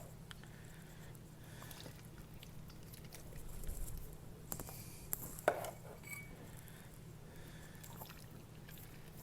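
Canned red kidney beans in their juice being poured and slopping faintly into a mixing bowl, with a single knock about five and a half seconds in.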